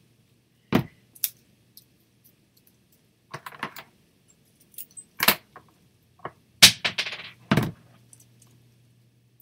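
Small metal craft pieces clicking and knocking against a tabletop and tin as they are handled: a scattering of sharp clicks and taps spread unevenly, with a brief rustle about seven seconds in.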